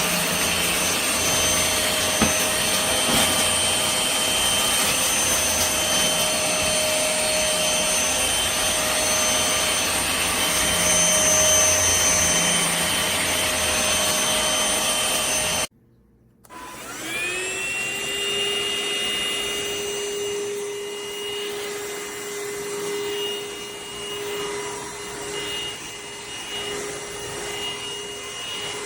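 Cordless stick vacuum cleaner's motor running steadily on its third speed setting, a high whine over a rushing of air. About sixteen seconds in the sound cuts off for a moment, then the motor spins up again, its whine rising and levelling off, and runs on more quietly.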